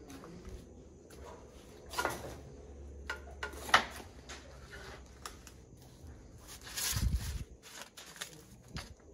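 Handling noise of old papers being shifted about in a wooden cabinet: scattered rustles and light clicks and taps, with one sharp click about four seconds in and a louder rustle with a dull thump near seven seconds.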